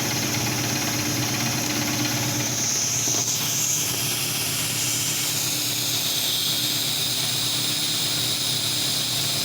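Galileo TP ultrasonic tube welding machine running: a steady machine hum with a high hiss, the hiss dropping lower in pitch about three seconds in.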